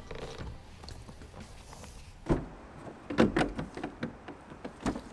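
A handful of irregular knocks and clunks, starting about two seconds in, after a quiet stretch.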